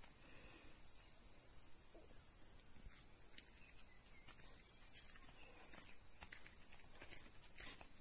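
Steady, high-pitched insect chorus droning without a break.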